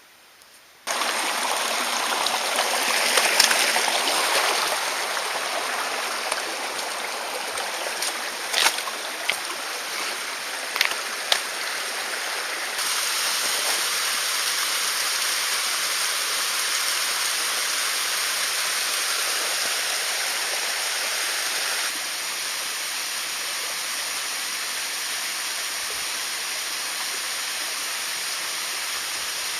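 Mountain stream flowing: a steady noise of running water that starts abruptly about a second in, with a few brief clicks around nine to eleven seconds in and two small shifts in level.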